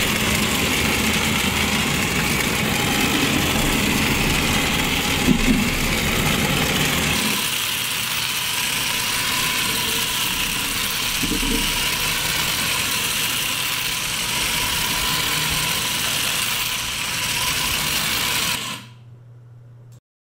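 Small 1.5-volt DC toy motor driving a toy helicopter's main rotor, a steady whirring buzz. Two brief knocks come about five seconds in, and the whirr cuts off suddenly near the end.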